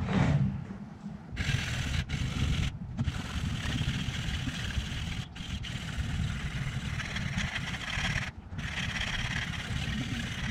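400-grit sandpaper on the steel bar of a homemade guided knife sharpener scraping along the edge of a badly rusted knife blade, set at about 20 degrees. Steady long strokes start about one and a half seconds in, with short breaks between them, after a bump at the very start.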